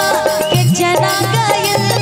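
Live stage band playing a Bhojpuri song: a melody line over a steady beat, loud and unbroken.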